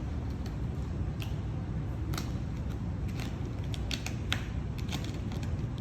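Steady low rumble of shop background noise, with scattered light clicks and ticks of handwork starting about a second in.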